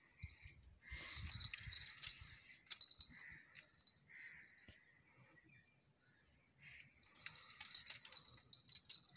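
Spinning fishing reel being cranked as line is wound in: a rattling whir in bursts of a second or two, twice in a row, then again near the end.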